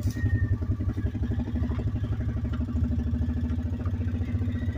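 Small off-road farm vehicle's engine running steadily as it drives slowly over rough ground, an even pulsing drone with a held hum.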